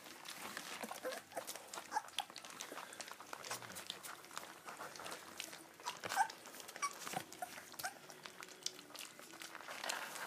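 Welsh Springer Spaniel puppies lapping milk from a tray: a run of irregular, quick wet licking clicks, with a few brief high squeaks from the puppies.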